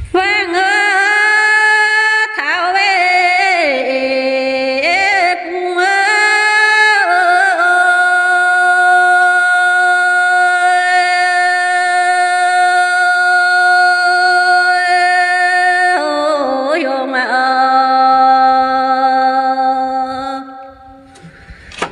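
A woman singing a Dao lượn folk song unaccompanied in a high, clear voice, with ornamented slides between notes and one long held note of about eight seconds in the middle; she stops about a second before the end.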